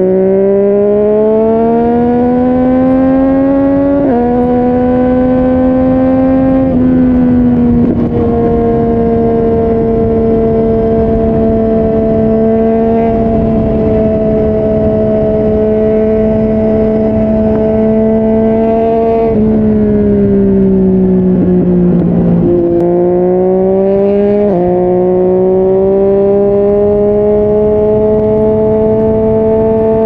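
Yamaha MT-09 inline three-cylinder engine through a Yoshimura R55 slip-on exhaust, heard on the move. It climbs in pitch under acceleration at first, then holds a steady cruising note. About two-thirds through it eases off, and it picks up again with a few sudden steps in pitch.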